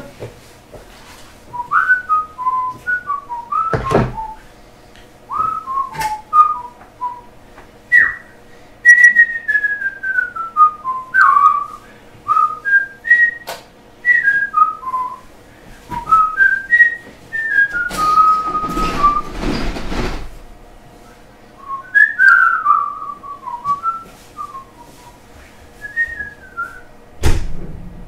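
A person whistling a wandering tune in short notes, now rising, now falling, with a few sharp clicks and knocks in between and a brief rustling noise past the middle.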